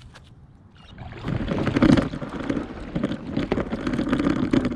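Water sloshing and slapping against an inflatable stand-up paddleboard as a person pushes it off and climbs aboard, with knocks of the board. It starts loudly about a second in and keeps going.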